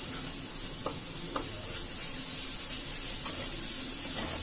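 Spice masala frying in oil and yogurt in a metal kadhai, sizzling steadily while a spatula stirs and scrapes it, with a few light knocks of the spatula on the pan. The spices are being roasted (bhuna) until done.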